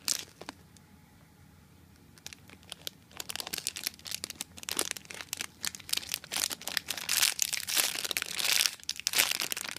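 Clear plastic bag around a foam cupcake squishy crinkling as fingers handle and press it: a dense run of crackles that starts about three seconds in and is loudest near the end.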